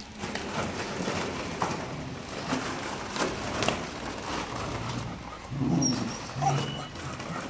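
Beagles playing tug-of-war over a plush toy, growling low in play, with a run of light clicks and knocks as plastic pit balls rattle under their feet; the growls are strongest late on.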